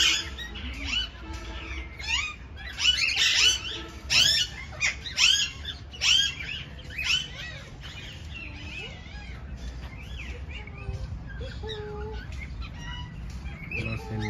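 A flock of small caged birds chirping busily, a rapid run of short rising-and-falling calls that thins out after about seven seconds.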